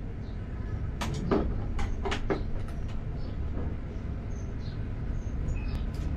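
A handful of light clicks and knocks, clustered in the first half, as a pen is set into the phone-holder slot of an AULA F3010 membrane keyboard, over a steady low hum.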